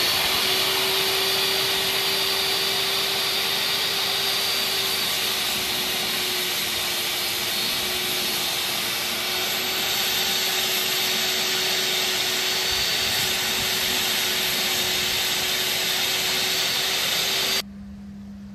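Jobsite table saw motor spinning up with a rising whine, then running steadily together with a shop vacuum on its dust collection while a board is fed through to rip it to width. The running stops abruptly near the end.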